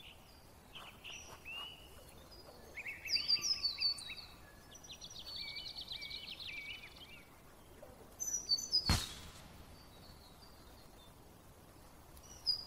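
Forest ambience of birds chirping and calling in short bursts, with a rapid trill in the middle. A single short, sharp swish sounds about nine seconds in.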